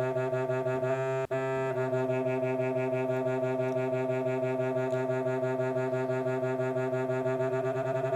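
Two low test tones a few hertz apart, around 126 and 132 Hz, played together through a small speaker, making a steady buzzy drone with many overtones that pulses quickly and evenly: the beats between the two frequencies. The tone cuts out for a moment about a second in.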